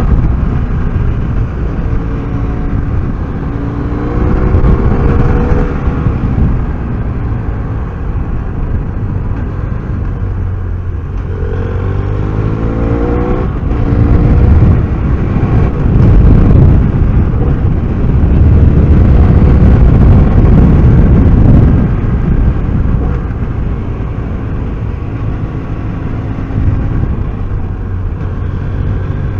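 BMW F800R's parallel-twin engine under way, its pitch rising as it accelerates twice, about three seconds in and again about eleven seconds in. A heavy low rush of wind and road noise, loudest in the middle stretch.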